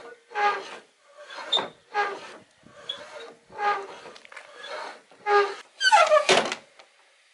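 Kick-up rudder and its fittings on a home-built plywood rowing skiff squeaking as the rudder is swung and its blade raised and lowered. There is a string of short, pitched squeaks, some gliding in pitch, and the loudest comes near the end with a falling pitch.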